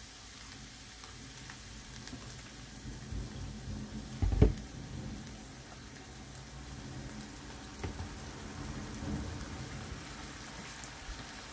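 Shrimp sizzling in a frying pan as cooking oil is poured over them, a steady hiss. A loud knock comes about four seconds in, with softer knocks near eight and nine seconds.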